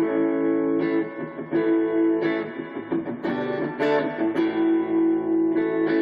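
Hadean Stratocaster-style electric guitar played through a Roland Micro-Cube amp, clean chords struck every half second to a second and left to ring.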